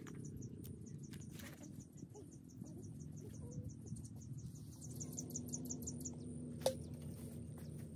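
An insect chirping in a fast, even train of short high chirps, about four or five a second, that stops about six seconds in, over a low steady rumble. A few faint clicks and one sharp click late on, the loudest sound, come from the food being handled.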